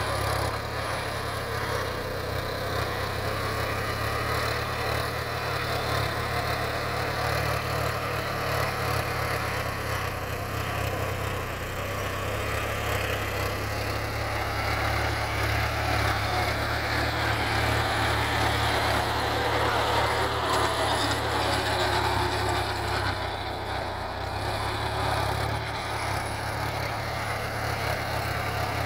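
John Deere 5050D tractor's three-cylinder diesel engine running steadily under load, driving a rotary tiller whose blades churn through the soil. It grows a little louder in the middle as the tractor comes closer.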